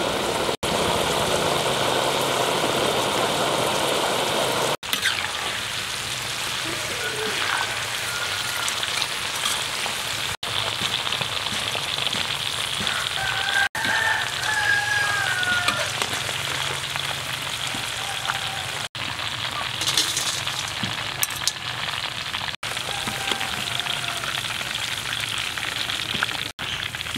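Hot oil bubbling and sizzling around grasshoppers deep-frying in a wok, a dense steady crackle broken by several brief cuts. Near the end the fried grasshoppers are lifted out in a wire strainer and oil streams back into the wok.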